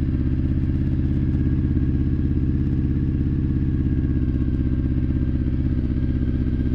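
Honda CBR900RR Fireblade's inline-four engine idling steadily while cold and warming up, which the owner thinks is running on only three cylinders.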